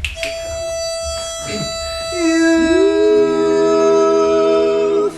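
A single steady starting pitch is sounded. About two seconds in, an a cappella group's voices come in one after another on held notes, stacking into a chord that they sustain until it cuts off near the end: the singers finding their starting notes.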